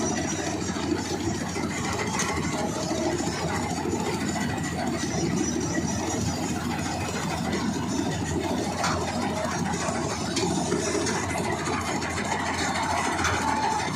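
Farm harvesting machinery, a tractor and combine harvester, running steadily with a dense engine and mechanical noise that holds even throughout.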